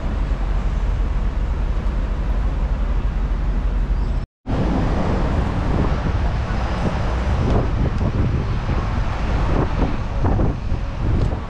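Steady low rumble of a moving vehicle with wind on the microphone. The sound cuts out completely for a split second about four seconds in, then returns with uneven gusty buffeting.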